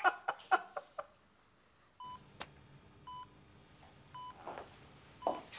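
Brief laughter in the first second. From about two seconds in, a hospital patient monitor beeps steadily, one short high beep roughly every second.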